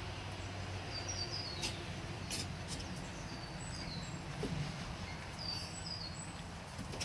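Small birds chirping in short, high, falling notes, in little runs of three or four that come three times, over a steady low rumble of outdoor background noise, with a few faint clicks.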